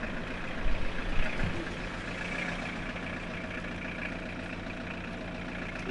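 Vehicle engine idling steadily amid street traffic noise, with a couple of brief low bumps about a second in.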